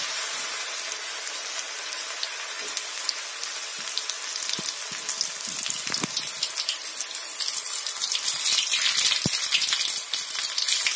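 Wheat-flour samosas deep-frying in hot oil in an iron kadai: a steady, dense sizzle with fine crackling that grows louder about eight seconds in. A few light knocks sound over it.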